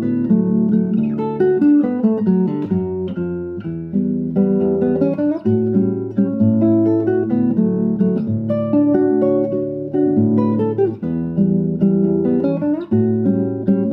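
Solo nylon-string classical guitar played fingerstyle: plucked bass notes under a running melody, with a couple of notes slid up the neck.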